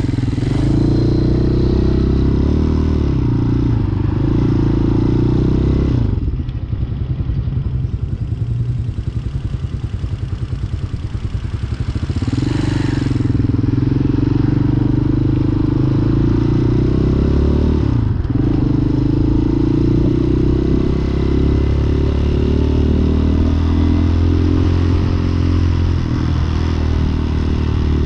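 Hawk 250 dirt bike's single-cylinder four-stroke engine running under way on a freshly fitted replacement carburetor. It runs steadily, drops back and runs quieter from about six seconds in, picks up again about twelve seconds in, and dips briefly once more about eighteen seconds in before pulling steadily again.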